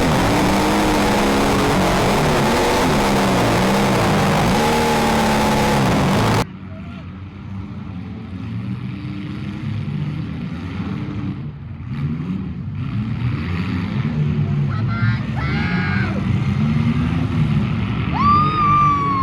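Engines of compact demolition-derby cars revving and running, their pitch rising and falling. The first six seconds are loud and harsh, then the sound cuts abruptly to a quieter mix of engines, with a few high wavering tones near the end.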